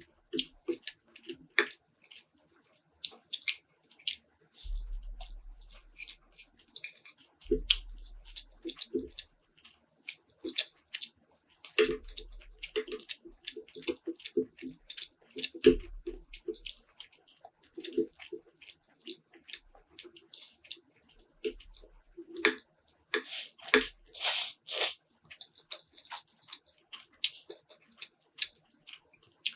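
Close-miked eating sounds: wet chewing, smacking and slurping of spicy noodles, as a run of irregular clicks and squelches, with a few low bumps and a louder stretch of wet sounds near the end.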